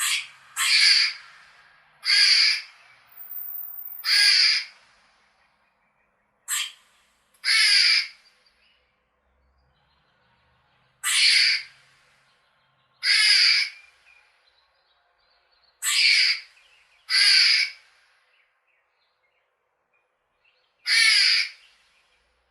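Squirrel barking: about a dozen harsh, rasping calls, each about half a second long, coming singly or in pairs one to four seconds apart.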